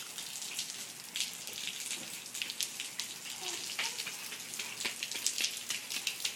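Rain falling and pattering on surfaces: a steady hiss with many small, irregular drop ticks.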